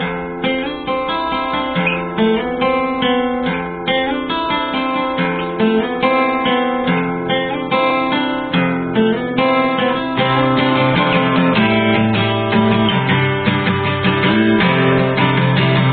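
Background music: an acoustic guitar instrumental of plucked notes, growing fuller and more even about ten seconds in.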